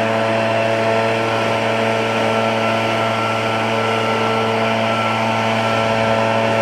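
Echo PB-770T backpack leaf blower's two-stroke engine running steadily at a constant speed, a continuous even drone with air rush and no change in pitch.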